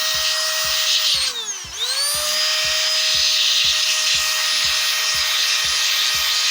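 Hurricane canless air rechargeable electric blower running flat out, a high motor whine over the hiss of rushing air, blowing dust out of a laptop cooling fan. About a second in it dips and winds down briefly, then spins back up and runs steady.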